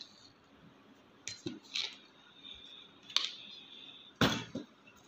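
A few scattered clinks and knocks of kitchen utensils and containers being handled around a pan, the loudest a knock near the end.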